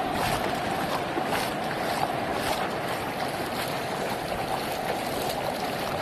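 Steady rushing noise of brown floodwater flowing across a road, even throughout with no distinct events.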